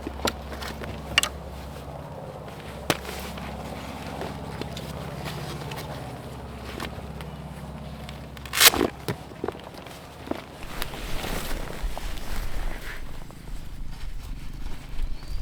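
Scattered clicks and knocks, with one loud knock about nine seconds in, over a low steady rumble; in the last few seconds a rougher rustling noise grows louder.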